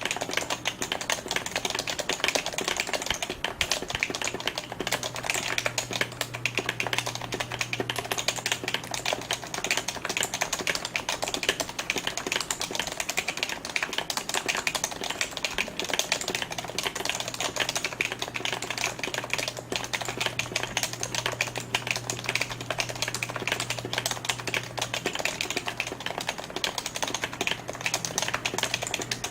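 Typing on a PFU Happy Hacking Keyboard Professional 2 with Topre electrostatic capacitive switches: fast, continuous keystrokes with no pauses.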